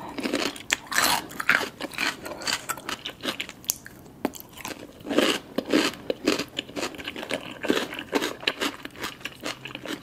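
Crisp crunching as a raw cucumber slice is bitten and chewed: a dense run of sharp crunches, loudest about a second in and again between five and eight seconds.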